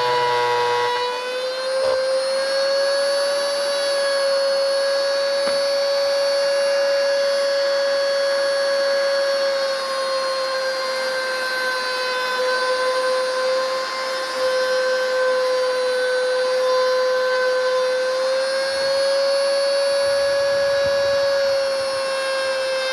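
Hand-held mini grinder running at high speed with a steady high whine, its pitch sagging and recovering slightly as it cuts PVC.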